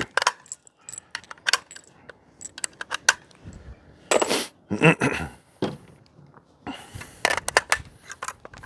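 Metallic clicks and clinks of cartridges and an HK 93 rifle being handled as it is loaded for firing, with a few louder clacks about four and five seconds in.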